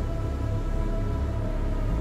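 Background music: held steady tones over a deep bass.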